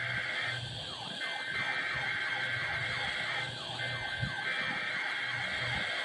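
NOAA Weather Radio SAME data tones for the Required Weekly Test: three bursts of buzzing digital tones about half a second apart, the first already under way, heard through weather alert radios. Under them a triggered weather alert radio sounds a repeating falling, siren-like alarm.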